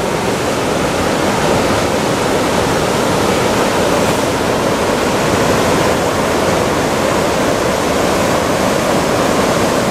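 River rapids rushing steadily, whitewater pouring over and around boulders, a loud, even roar of water.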